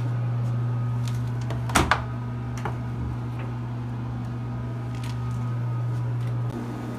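Steady low electrical hum. About two seconds in, a sharp click as the door of a GE front-loading washing machine is pulled open, then a few faint ticks.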